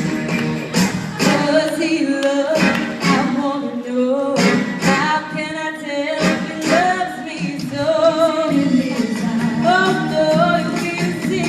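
Live band music with singing, voices over guitar and drums.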